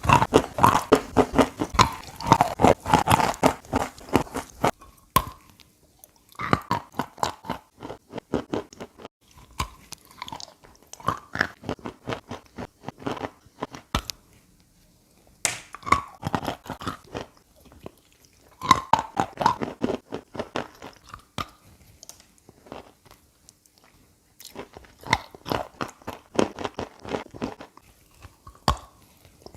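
Chalk coated in chalk paste being bitten and chewed: clusters of dense, crackly crunches, each lasting a few seconds, broken by short pauses.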